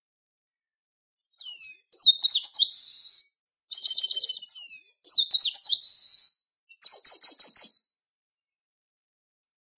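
Chestnut-capped blackbird (garibaldi) singing three phrases of rapid high whistled notes mixed with buzzy trills. The last phrase is a quick run of falling notes.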